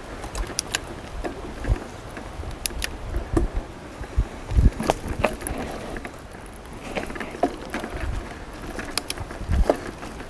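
Mountain bike riding down a dirt forest trail: tyres rolling over dirt and dry leaves, wind on the microphone, and frequent knocks and rattles from the bike over bumps, with the heaviest thumps about four and a half seconds in and again near the end.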